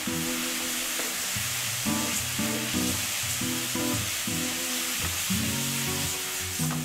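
Egg noodles sizzling in a hot oiled pan as they are stir-fried with a spatula and coated in dark soy seasoning. Background music with plucked notes plays under the sizzling.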